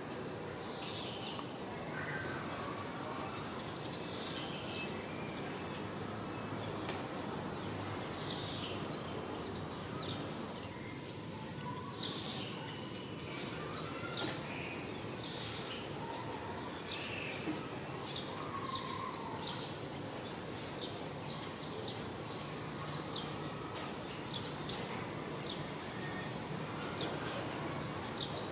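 Steady background ambience: a low hiss with many short, high chirps scattered throughout, and a thin, steady high-pitched whine.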